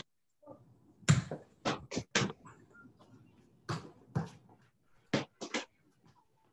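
Soccer balls being juggled: a run of about ten irregular thumps of foot on ball and ball on floor, heard through video-call microphones.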